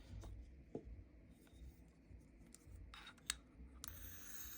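Faint handling of a small electric lighter: a few light clicks and a sharp tick, then a faint hiss near the end.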